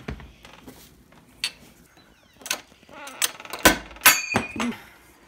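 Metal clicks and knocks from an old front door lock being worked out of the door, with a cluster of clatter and a short metallic ring about four seconds in.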